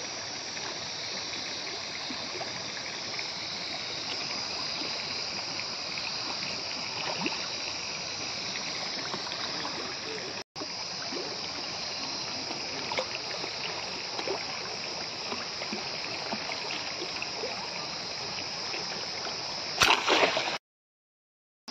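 Water running and splashing in a concrete fish pond, a steady hiss with small splashes. A short louder burst near the end, then the sound cuts off.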